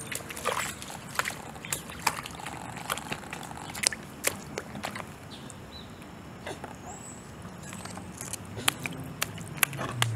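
A small child's hand and rubber rain boots splashing in a shallow puddle: irregular sharp little splashes and water sloshing.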